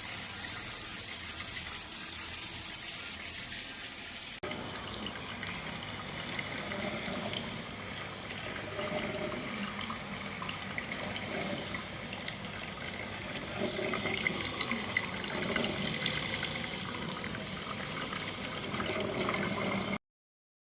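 Water gurgling and trickling in a KHIND CM1215 drip coffee maker as it brews. About four seconds in the sound changes abruptly, then comes in irregular gurgles that grow louder toward the end.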